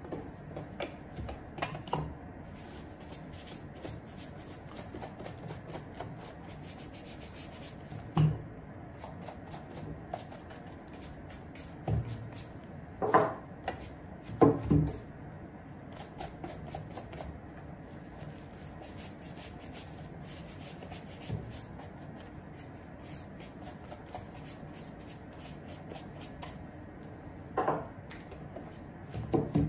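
Steady rubbing strokes of a hand over suede shoe uppers. Several short knocks come when a shoe is set down on the table, the loudest in the middle.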